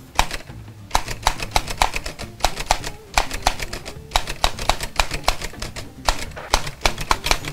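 Manual typewriter keys clacking in quick, irregular runs of several strikes a second, broken by short pauses.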